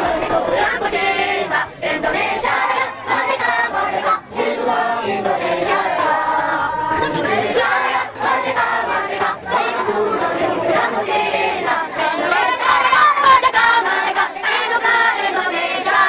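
A large group of children singing together, many voices at once, with a few short breaks between lines.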